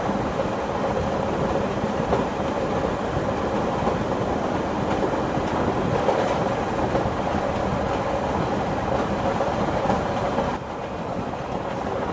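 Railway train running on the rails: a steady rumble with the knocking of the wheels. About ten and a half seconds in the sound gets a little quieter and duller.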